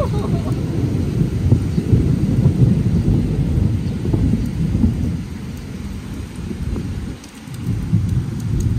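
Torrential rain pouring down, with a deep rumbling that swells and fades and dips briefly about seven seconds in.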